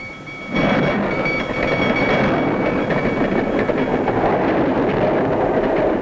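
A train running past on the track: a loud, steady rumble and clatter that starts abruptly about half a second in.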